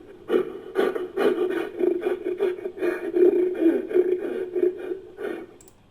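Fan-made monster roar sound effect, layered from gorilla and monster roar recordings: one long rough, rattling roar that swells and fades out about five seconds in.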